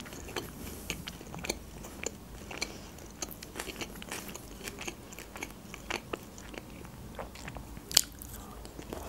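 Close-up eating sounds from iskender doner: chewing with many small wet mouth clicks and smacks, then a sharp bite about eight seconds in.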